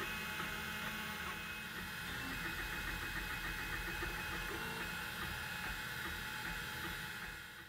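Printrbot 3D printer running a PLA print: a steady whir from the cooling fan and stepper motors with shifting buzzy tones, fading out near the end.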